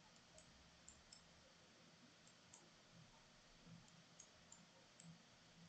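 Near silence, with faint, scattered computer mouse clicks, about eight to ten spread unevenly across the few seconds.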